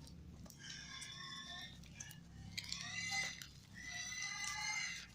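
Packing tape being pulled off a parcel, squealing in three pulls of about a second each.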